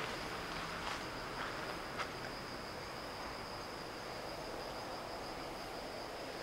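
A steady, high-pitched insect trill, with a few faint footsteps in the first two seconds.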